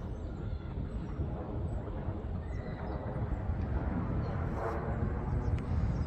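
Outdoor park ambience: a steady low rumble with faint, scattered bird chirps, and a brief distant cry about five seconds in.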